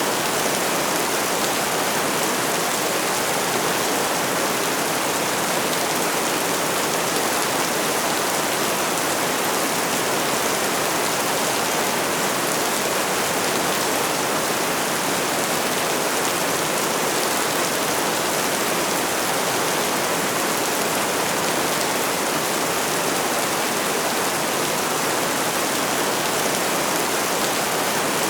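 Steady, even rainfall: a dense hiss that holds level throughout, with no breaks or changes.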